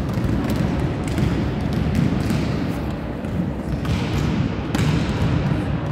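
Volleyballs being struck and bouncing off the court floor during a team warm-up: many irregular overlapping thuds and slaps over a constant low din.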